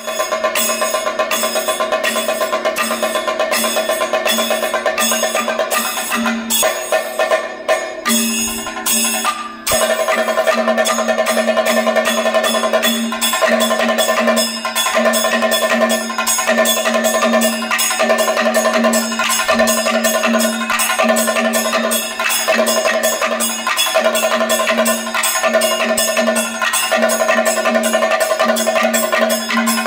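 Kathakali stage accompaniment: fast, dense percussion with ringing metallic tones held over it. The playing thins out and dips briefly about a quarter of the way through, then returns at full density.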